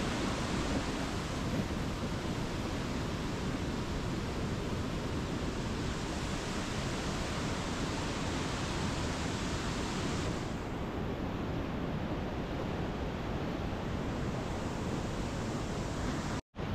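Steady rushing of a flooded, rain-swollen river in spate, its whitewater churning over boulders; the sound drops out for an instant near the end.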